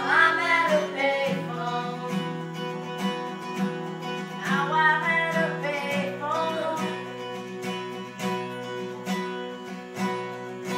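Music: acoustic guitar playing held chords with wordless singing, one vocal phrase about the start and another around the middle.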